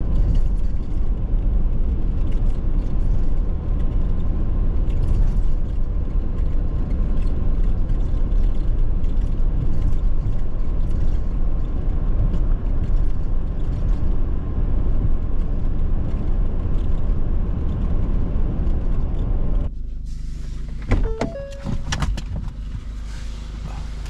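Steady road and tyre noise with engine hum, heard from inside a moving car. About 20 seconds in it cuts to a quieter interior with a few sharp clicks and a short tone.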